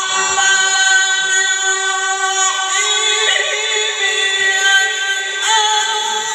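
A man reciting the Quran in the melodic qirat style, holding long sustained notes. The pitch shifts about two and a half seconds in and again near the end.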